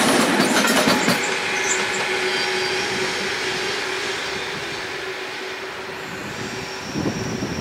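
SNCB double-deck passenger train with a class 18 electric locomotive passing close and then running away around a curve. The wheels rumble and clack over the rails, fading steadily, while a steady high squeal from the wheels in the curve holds on as it recedes.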